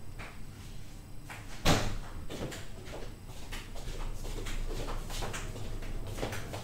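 A refrigerator door and things being handled inside it: one sharp knock about a second and a half in, then scattered lighter clicks and knocks.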